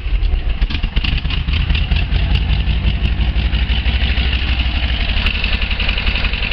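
1976 Volkswagen camper's air-cooled flat-four engine running steadily. It is an engine that will not settle to an idle and stalls out, for a reason the owner does not know.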